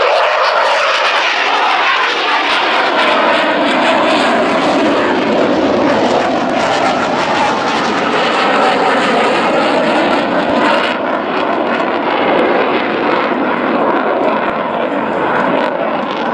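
Jet fighter engines running loud as the aircraft flies past over the airfield: a steady rushing jet noise whose pitch slowly shifts. The high hiss drops away about eleven seconds in as the jet moves off.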